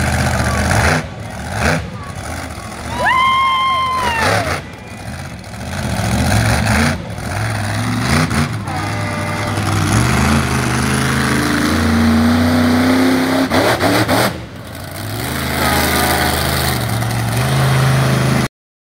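Monster truck engine running and revving as it drives around a dirt track, climbing in pitch about twelve seconds in. A short whistle-like tone rises and falls about three seconds in.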